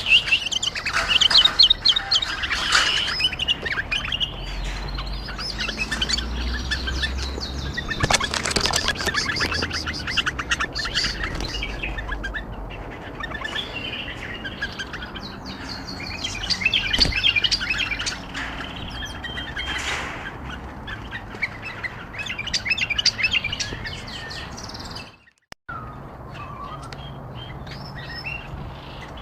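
Bulbuls chirping and warbling in quick, busy phrases, with a low rumble underneath in the middle stretch. The sound cuts out abruptly for a moment near the end, then fainter chirping resumes.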